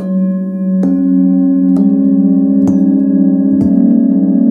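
A seven-note set of hand-forged singing bowls struck one after another with a padded mallet, five strikes a little under a second apart. Each bowl keeps ringing under the next, so the tones pile up into a sustained chord with a slow wavering beat.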